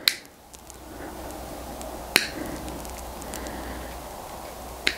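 Three sharp clicks, about two seconds apart, as a screwdriver tip nicks a bulkhead light's cable grommet to let a larger cable through, over a steady background hum.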